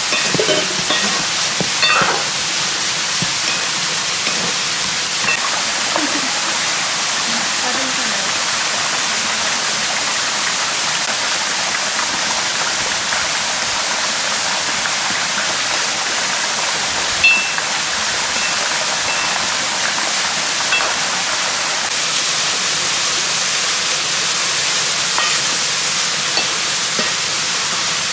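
Steady rushing of a mountain stream running past, with a few light clinks of a metal ladle against an aluminium cooking pot, the loudest about seventeen seconds in.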